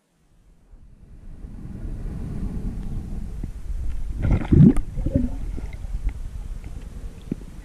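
Underwater water noise picked up by a GoPro in its housing as the diver moves through the water: a low rumbling rush that builds over the first second or two, with a louder gurgling surge about four and a half seconds in.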